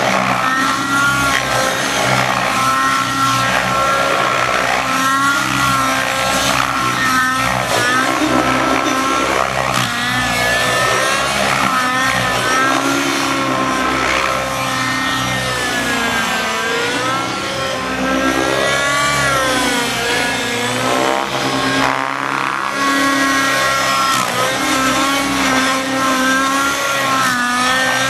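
Nitro-engined Raptor 90 RC helicopter flying 3D aerobatics: its engine and rotor whine, steady in level, with the pitch rising and falling again and again as the head speed and load change through the manoeuvres.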